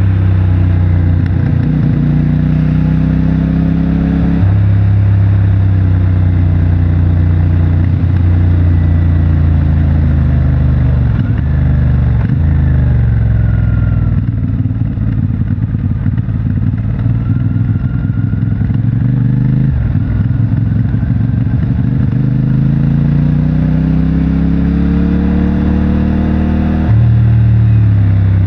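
CFMOTO 450MT motorcycle's parallel-twin engine through its stock exhaust under way: it revs up and shifts up about four seconds in, holds a steady pull, eases off to a lower, uneven run in the middle, then climbs again to another upshift near the end.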